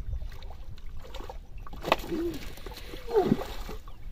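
Water splashing in the shallows as a hooked fish thrashes near the shore, with a sharp splash about two seconds in. A man's voice gives two short cries over the splashing.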